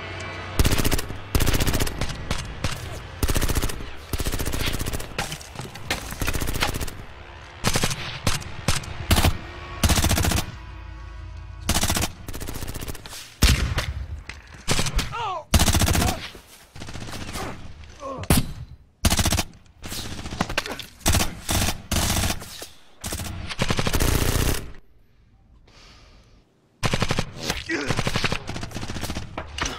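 Exchange of gunfire: bursts of automatic fire and single shots, coming in quick runs with short pauses between. The firing drops away for a couple of seconds near the end, then starts again.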